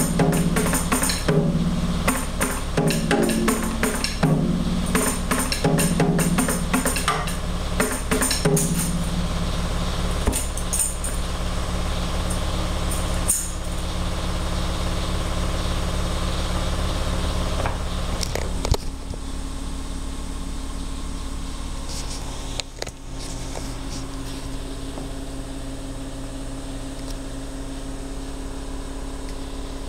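Fast drumming with bright jingly hits for about the first nine seconds, then a few scattered strikes. Near the end of the drumming a steady low hum is left, and about two-thirds of the way through it changes to a steadier low drone.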